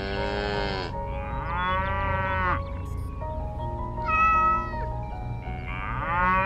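A cat meowing four times, each meow about a second long and rising then falling in pitch, the third one higher and shorter. Light background music runs underneath.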